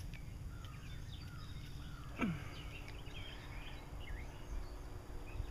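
Backyard ambience: a steady low rumble with scattered faint bird chirps, and one quick, sharp falling call a little over two seconds in.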